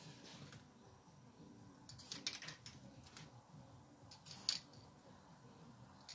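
Aerosol spray-paint can given short, light puffs: a cluster of brief hisses about two seconds in and another short hiss at about four and a half seconds.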